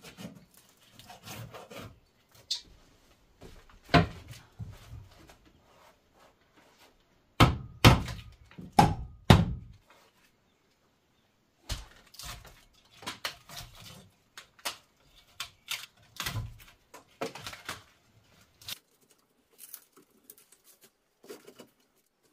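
Hand tool scraping and knocking at the rotten logs of a log wall, prying off decayed wood, in irregular taps and scrapes. About eight seconds in comes a quick run of four or five loud knocks.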